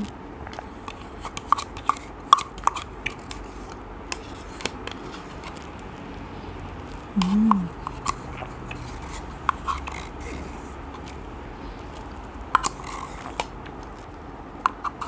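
Spoon scraping and tapping the inside of a plastic yogurt cup, with wet mouth sounds of eating yogurt off the spoon: scattered short clicks throughout, and a short hummed "mm" about seven seconds in.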